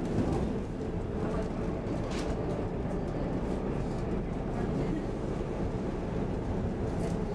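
SL X10 electric commuter train running at speed, heard from inside the passenger car: a steady rumble of wheels on rail, with a faint click about two seconds in.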